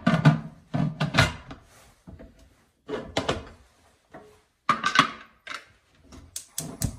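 Aluminium pressure cooker lid being fitted and twisted shut on the pot, in several bursts of metal clunks and scraping clicks. Near the end come sharp clicks as the gas hob's knob is turned to light the burner.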